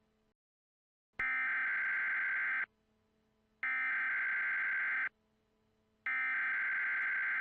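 Emergency Alert System SAME header: three identical bursts of shrill digital data tones, each about a second and a half long with a second's pause between, marking the start of a new emergency alert.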